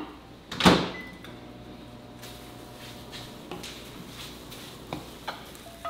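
A microwave oven door shut with a single knock about a second in, followed by the oven running with a low steady hum. A few light clinks of cookware come near the end.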